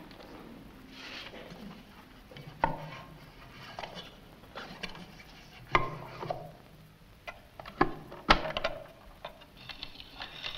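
Irregular clicks, taps and small knocks of a gramophone being handled: a record laid on the turntable and the machine set going.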